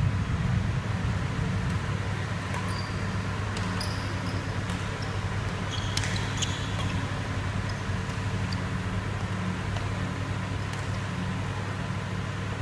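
A steady low hum, with a few sharp hits of badminton rackets on a shuttlecock and brief squeaks of shoes on the court floor.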